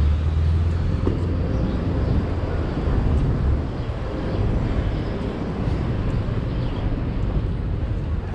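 City street traffic: a passing vehicle's low engine rumble, strong at first and fading away about three and a half seconds in, over steady traffic noise.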